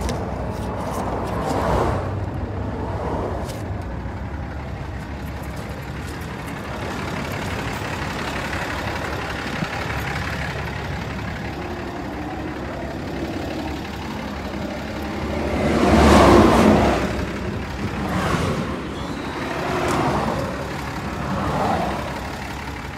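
Steady vehicle engine noise, with one louder swell that rises and falls about two-thirds of the way in and a few smaller swells after it.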